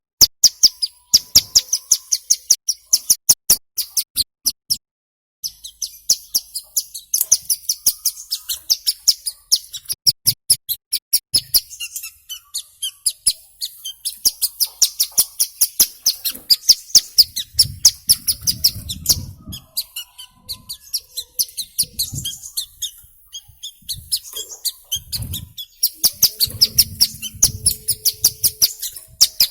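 Hill prinia (ciblek gunung) calling in a rapid, continuous series of sharp, high chirps, several a second, with a short break about five seconds in.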